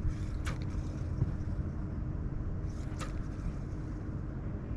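Strong wind buffeting the microphone: a steady low rumbling noise, with two brief sharp sounds, one about half a second in and one near three seconds.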